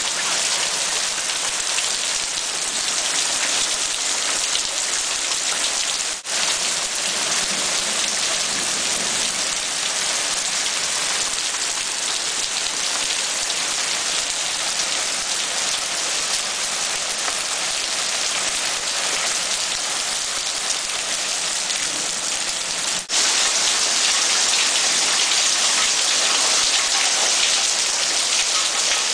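Heavy hail falling, a steady dense hiss of hailstones hitting the ground. It dips briefly twice and is a little louder after the second dip, near the end.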